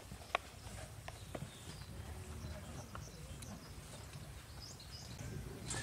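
Faint outdoor ambience: a steady low rumble with a few scattered footsteps on dry dirt and gravel. Small bird chirps come in near the end.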